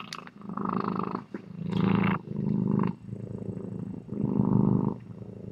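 Raccoon growling: a run of about five rough, buzzing growls, each shorter than a second, with short pauses between them.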